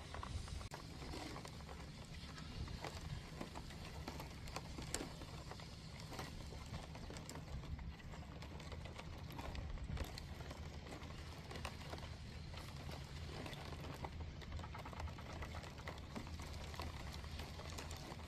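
Hermit crabs in a plastic box, their shells making irregular small clicks and taps against the plastic, over a steady low hum.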